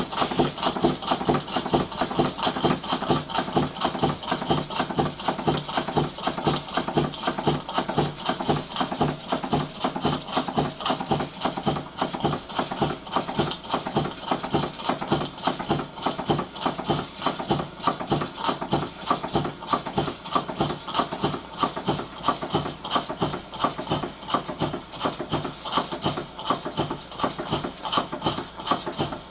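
Model beam engine running at a steady speed, its working parts giving a quick, even beat of about three to four knocks a second.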